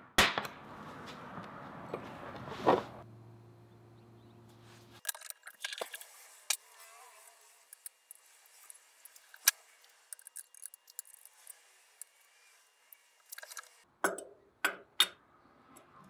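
Two sharp snaps, about two and a half seconds apart, of an automatic center punch marking hole locations on a bronze casting. Then come many small metallic clinks and ticks of steel C-clamps, a 1-2-3 block and a vise as the part is clamped up for drilling, with a few louder clacks near the end.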